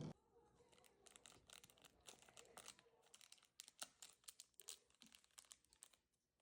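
Small plastic glitter packet being crinkled and torn open by hand: faint, irregular crackles. A single knock sounds right at the start.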